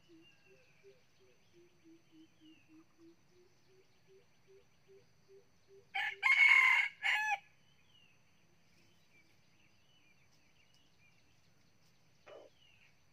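A nine-month-old red junglefowl rooster crows once about six seconds in: a short crow of about a second and a half in three parts. Faint bird chirps and a soft low call repeated about three times a second sound before it, and a brief low call comes near the end.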